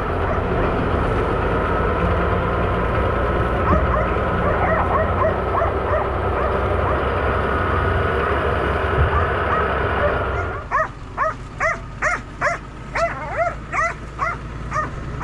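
Tractor engine running steadily while pulling a mole plough, with faint dog whines over it; about ten seconds in the engine noise drops away and a dog yips and barks rapidly, two to three times a second.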